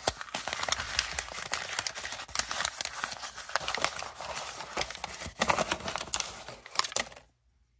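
Paper packaging crinkling and rustling as it is unwrapped by hand from a new thermostatic radiator trap cartridge, with many small crackles; it cuts off suddenly near the end.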